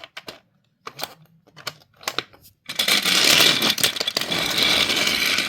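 Scattered light plastic clicks and taps, then from under three seconds in a loud, steady rattling whir of a battery-powered Trackmaster Thomas engine running over plastic track, not stopping at the stop piece.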